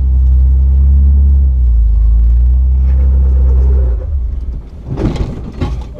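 Jeep Wrangler LJ running with a deep, steady rumble while crawling the rocky trail. About four seconds in the rumble drops away, and a couple of sharp knocks or scrapes follow near the end.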